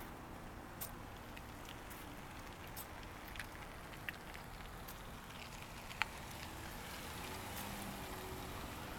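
Quiet outdoor background with a low steady rumble and a handful of sharp, light ticks, the loudest about six seconds in: drops of a wintry mix of sleet and rain landing.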